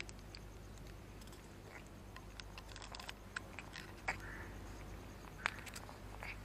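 Faint, scattered small clicks and smacks from a cat sniffing and licking at a squeeze-tube cat treat, with two sharper clicks in the second half.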